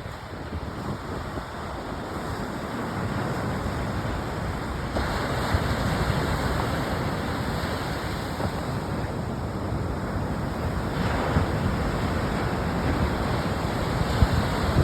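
Ocean surf washing onto a beach, with wind buffeting the microphone as a gusty low rumble. The surf swells about five seconds in and grows louder toward the end.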